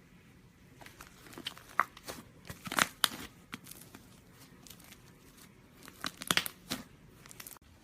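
Slime being stretched and squeezed by hand, giving clusters of sticky crackles and pops. There are two busier bursts: one about a second and a half in and one about six seconds in.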